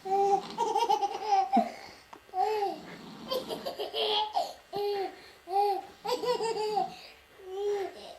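A woman laughing in a long run of short, high-pitched "ha" bursts, with breathy sounds between them.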